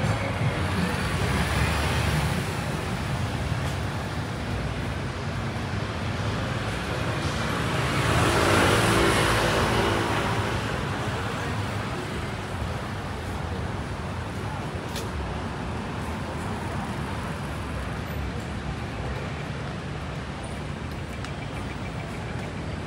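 City street traffic: a steady wash of passing cars, with one vehicle passing close by, growing louder and then fading about eight to ten seconds in.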